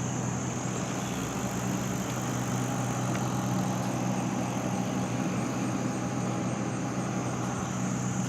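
Steady low mechanical hum, like an engine idling, with a constant high-pitched drone above it; nothing changes over the whole stretch.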